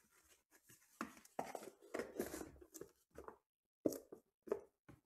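Hands handling trading-card packaging: cardboard and a foam box insert rustle and scuff in irregular bursts, with a few sharp clicks near the end as a card is pulled out.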